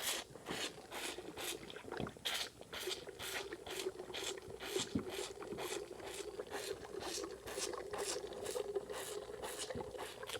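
Bull calf sucking and slurping milk from a feeding bottle's nipple, in quick rhythmic pulls about two a second. A steady low hum joins in from about three seconds in.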